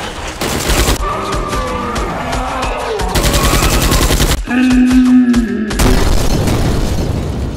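Three bursts of rapid gunfire sound effects: one about half a second in, one around three seconds in and one near the end. Background music plays between and under them.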